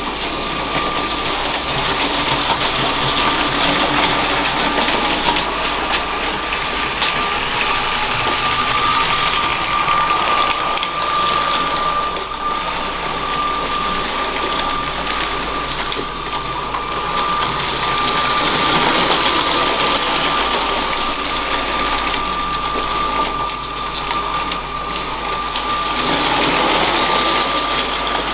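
LEGO train running on plastic track: a steady high motor whine over the rattle of the wheels, with faint clicks. It grows louder and fades again every several seconds.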